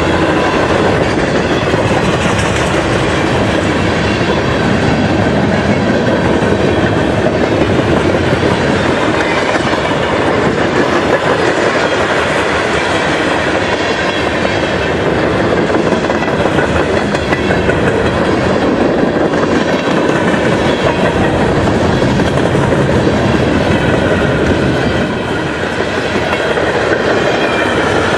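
Freight train cars rolling past close by, with a steady, loud noise of steel wheels on the rails.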